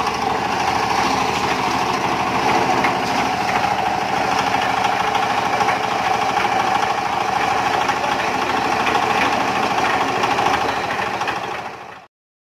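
Portable drum concrete mixer running steadily under its engine, a dense rapid mechanical rattle. It fades out quickly and stops abruptly shortly before the end.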